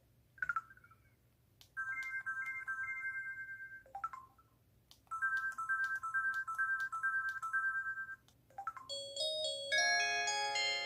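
Samsung Anycall SPH-C2205 slide phone playing its built-in electronic tones through its small speaker. Short swooping effect sounds alternate with two runs of quick repeated beeps, and a chiming melody starts near the end.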